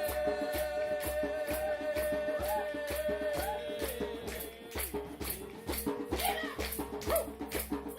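Improvised folk-style group music: a shaker rattles a steady beat of about three to four strokes a second over a pulsing low didgeridoo drone, while a long held melodic note gives way about halfway through to shorter notes.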